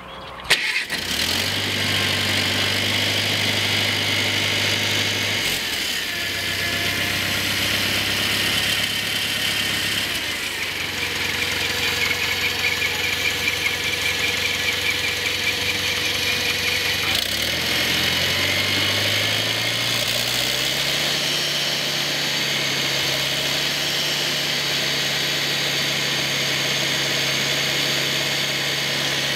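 1972 International Cub tractor's four-cylinder flathead engine starting about half a second in and catching at once, then running steadily. Its speed rises about two-thirds of the way through and holds at the higher speed.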